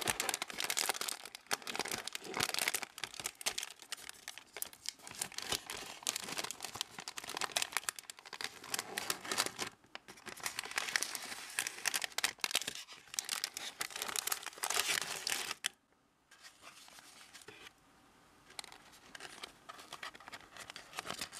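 Thin clear plastic film wrapper crinkling and tearing as it is pulled open off a stick cake, dense crackling for about fifteen seconds, then dropping to softer, intermittent rustling near the end.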